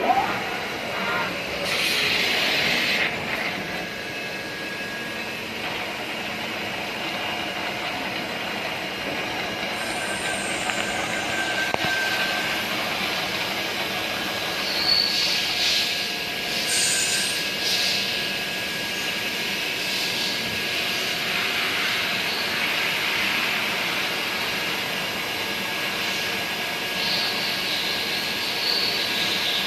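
CNC machine tool running while it machines a brass shaft: a steady mechanical noise with a faint high whine, broken by a few short bursts of hiss.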